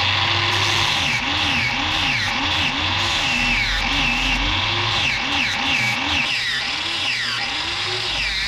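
Angle grinder with a sanding disc running steadily as a steel knife blade is ground against it, its whine dipping and recovering in pitch over and over as the blade is pressed on and eased off.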